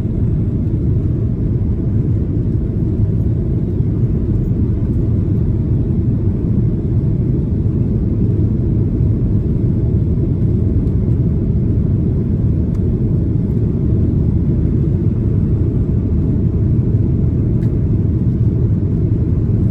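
Steady low rumble of a Boeing 737-800's CFM56-7B engines at takeoff thrust, with rushing air, heard from a window seat inside the cabin as the jet lifts off and climbs out.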